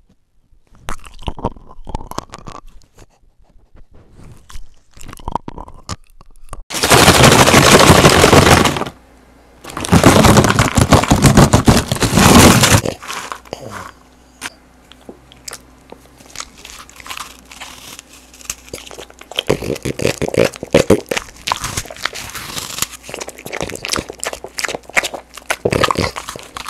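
A French bulldog snuffling and sniffing right at a small microphone, with two long loud noisy stretches a few seconds in. Then a French bulldog eating strawberries close to a microphone: wet, crunchy chewing in bursts.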